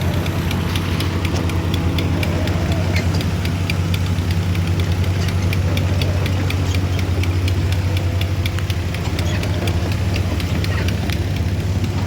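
An engine running steadily at a constant speed: a low hum with a fast, even clatter over it.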